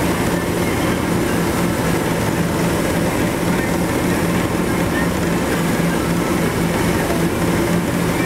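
Motorboat engine running steadily at speed, a constant drone over the rushing of the churning wake behind the boat.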